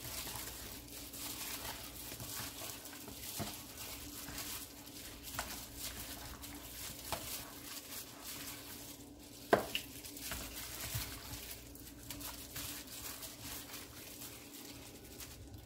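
A plastic-gloved hand squishing and turning chicken pieces in a thick mustard marinade in a plastic bowl: irregular wet squishing and crinkling, with one sharp knock about nine and a half seconds in.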